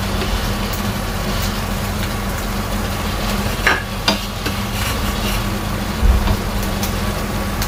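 Lauki and chana dal curry sizzling and simmering in a kadhai on a gas flame, over a steady low hum, with a few light knocks against the pan about halfway through and again near the end.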